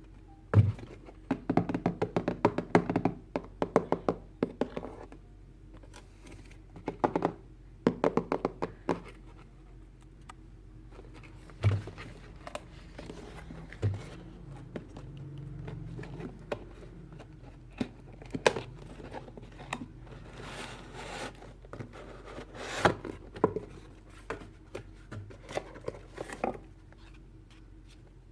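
Plastic toy pieces and packaging of a toy hair dryer set being handled: irregular runs of clicks, knocks and crinkles, with a few louder thunks.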